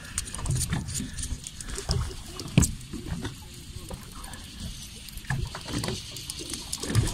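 Gusty wind rumble and water noise around a small boat on open sea, with scattered sharp knocks and taps, the loudest about two and a half seconds in.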